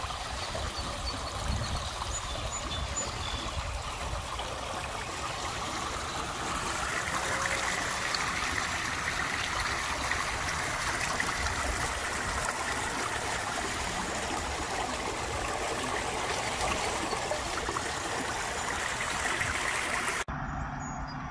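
Storm runoff rushing steadily down a grassy ditch and pouring into a concrete drain basin. The sound changes abruptly near the end.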